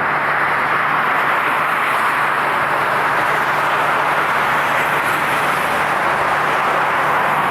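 Jet airliner engines running: a steady, even rush of engine noise with a low steady hum underneath.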